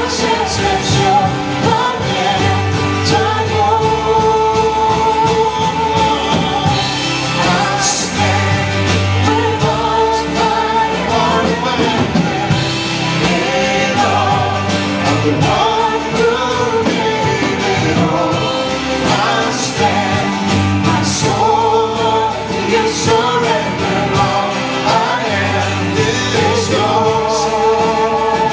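Live worship band playing a song with singing: sung melody over guitars, keyboard and bass, with low bass notes returning every few seconds.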